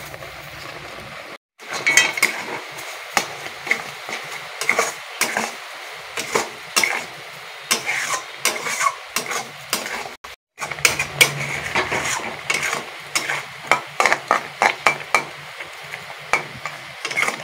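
A flat metal spatula scrapes and clatters against a metal kadai while stirring grated coconut, milk and freshly added sugar as the sugar melts into the mixture. There are quick irregular scrapes and knocks, broken by two short silences, about a second and a half in and about ten seconds in.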